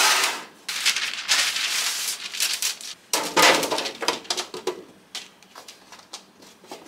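Sliced, oil-coated mushrooms sliding and tumbling out of a glass bowl onto a parchment-lined baking sheet, scraped out with a wooden spoon in three rustling bursts. After that come soft scattered taps and rustles as the slices are spread out by hand.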